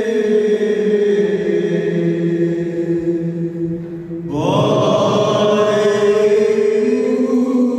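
Male liturgical chanting of the Malankara Orthodox blessing, sung in long held notes. It breaks off briefly about four seconds in, then a new phrase begins on a rising pitch.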